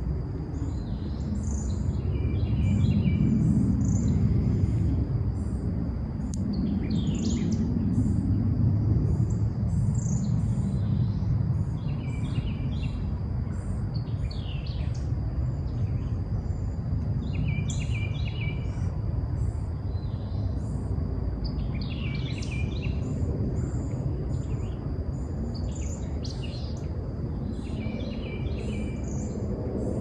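Several birds singing and calling, one repeating a short stepped song phrase every few seconds, over a steady high thin tone. Underneath, and louder, runs a low rumbling noise that swells and fades.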